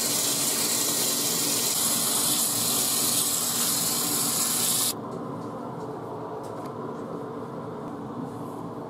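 Tap water running hard into a sink onto tie-dyed T-shirts as hands rinse the excess dye out. About five seconds in it cuts sharply to a quieter sound of wet fabric being squeezed and water splashing in the sink, with a few faint drips.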